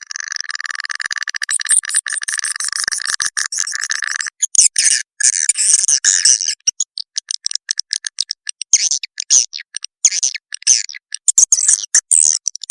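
Swiftlet call-sound recording of the kind used to lure swiftlets: rapid high-pitched chirping and twittering. It opens with a dense buzzing trill lasting about four seconds, then breaks into choppy bursts of chirps.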